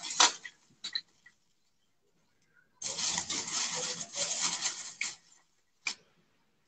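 Plastic packaging crinkling and rustling for about two and a half seconds in the middle, with a few sharp clicks and knocks before and after as the ring light and its parts are handled.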